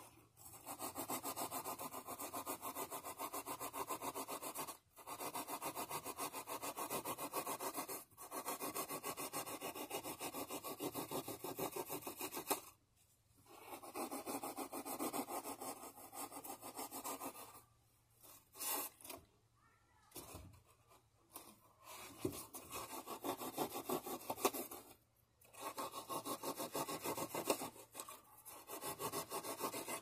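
A knife sawing through the wall of a styrofoam cooler, cutting out a round hole: quick back-and-forth rasping strokes in runs of a few seconds, with short pauses between runs.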